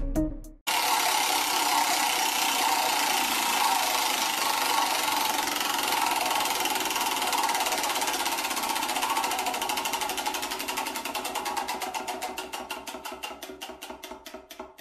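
Spinning prize wheel sound effect: rapid clicking of the wheel's pointer against its pegs, which starts suddenly and slows down and fades into separate clicks near the end as the wheel comes to rest.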